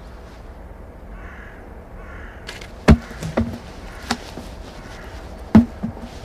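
A small wooden stool kicked over and knocking onto the ground: a loud sharp knock about three seconds in, a few smaller knocks after it, and another loud knock near the end. Crows caw faintly.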